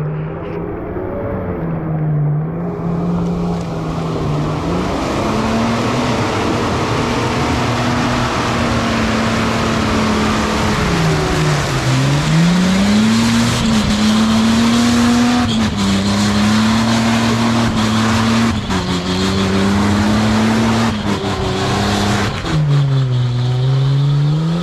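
Toyota Land Cruiser engine pulling hard up a muddy climb, revs rising and falling as the throttle is worked, with a sharp dip in revs about halfway through and again near the end. Tyres churning through mud add a steady rushing noise underneath.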